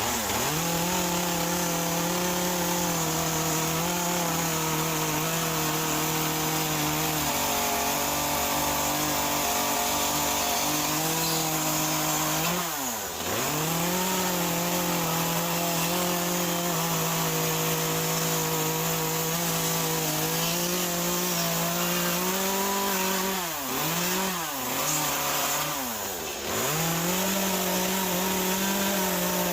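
Chainsaw running at high revs while cutting shingles into a soaking-wet Western Red Cedar stump. The engine note is steady and briefly drops and climbs back up about halfway through and three times near the end, as the throttle is eased off and opened again between cuts.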